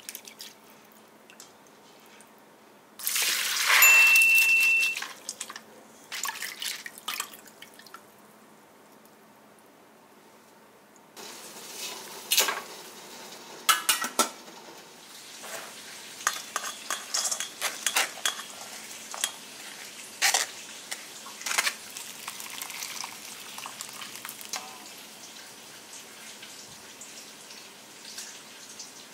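Rice being washed and stirred in water in a metal bowl: water splashing and running, loudest in a rush about three seconds in, with scattered clinks and knocks from a stainless steel pot lid and a rice paddle against the bowl.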